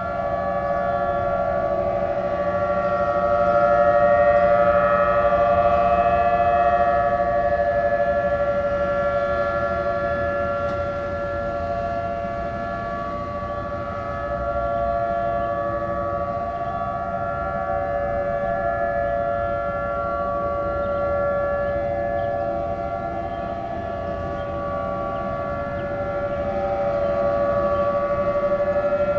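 Outdoor civil-defense tornado warning siren sounding a steady tone for a test of the warning system. It holds its pitch while its loudness slowly swells and fades.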